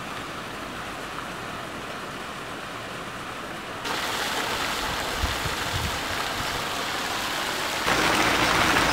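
Hot spring water pouring and splashing into a soaking pond: a steady rushing noise that steps louder about four seconds in and again near the end.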